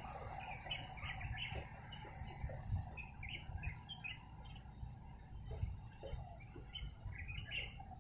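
Small birds chirping in many short, scattered calls, over a steady low rumble.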